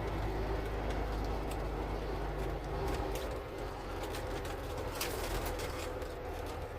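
Semi truck's diesel engine running low and steady as the rig creeps ahead, its note shifting about halfway through, with a few short knocks and rattles, the sharpest about five seconds in.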